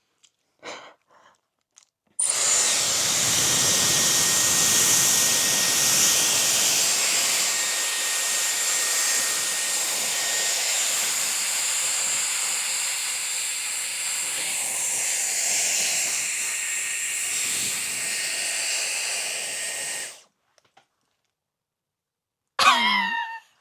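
Dyson Airwrap i.d. hair styler running on a section of hair: a steady rush of blown air with a thin high whine, switched on about two seconds in and off again abruptly after some eighteen seconds.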